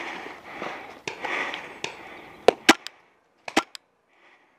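Paintball markers firing: two quick bursts of three sharp pops about a second apart, after a couple of seconds of rustling movement noise.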